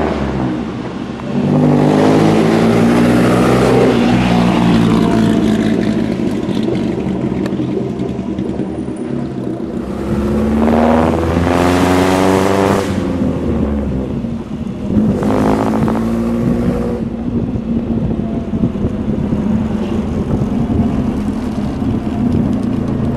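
1926 Bentley 3-Litre/4½-Litre four-cylinder engine pulling the open tourer along. The revs climb and fall back three times as it changes gear, with steady running in between.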